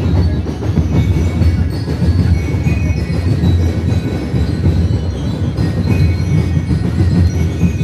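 Ati-Atihan festival drumming heard as a loud, dense, steady low rumble, with faint high tones above it.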